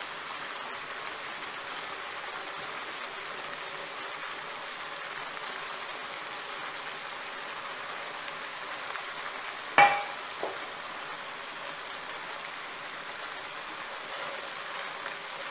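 Thick tomato-and-masala gravy with freshly added mushrooms simmering in a pan, a steady hiss; the oil has separated from the masala, the stage at which the mushrooms go in. A sharp knock comes about ten seconds in, followed by a fainter one.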